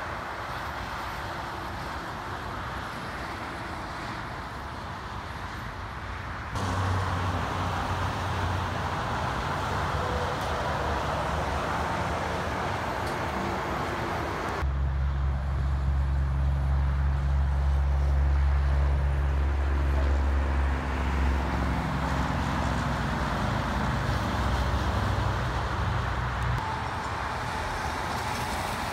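Interstate highway traffic: steady tyre and wind rush with diesel tractor-trailers passing, jumping abruptly louder twice. Through the second half a heavy truck's diesel engine drones low and steady, the loudest sound, then drops away near the end.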